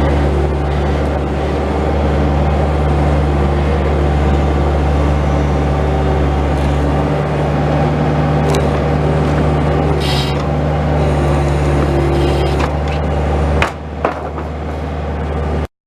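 Bobcat S185 skid steer loader's diesel engine running steadily with a deep hum, with a few short knocks. The sound dips briefly near the end and then cuts off abruptly.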